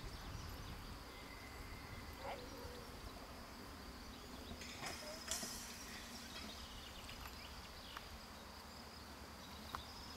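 Faint outdoor ambience: a steady low rumble with a few faint distant sounds and one sharp click about five seconds in.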